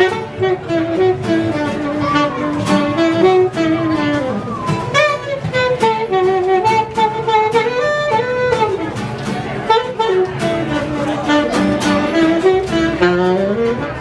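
A live band plays: a saxophone carries a sliding, bending melody over a picked guitar accompaniment.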